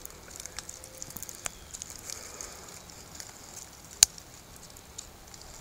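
Lit sparkler bomb (sparklers bundled in black tape) burning down ahead of detonation, a faint fizzing hiss with scattered small crackles and one sharper crack about four seconds in.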